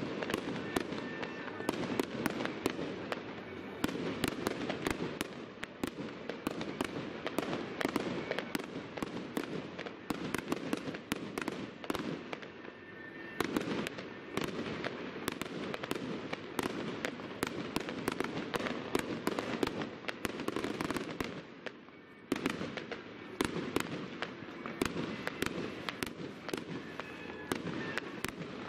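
Aerial fireworks bursting in rapid succession, with many sharp bangs following one another, and a short lull about three-quarters of the way through.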